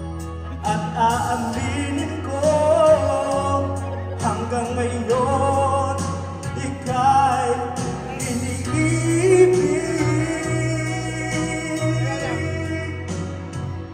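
A man singing into a handheld microphone over instrumental backing music: one sung melody line over steady bass notes that change every second or two.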